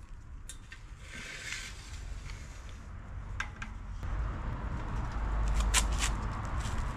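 Handling noise from work with tools and materials: a brief rustle about a second in, a few sharp clicks and taps, and a low rumble in the second half.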